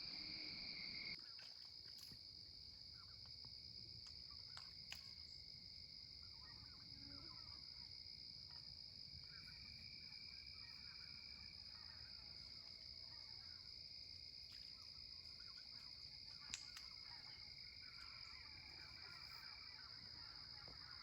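Faint woodland ambience: a steady high insect chorus, with scattered faint chirps and a few soft clicks.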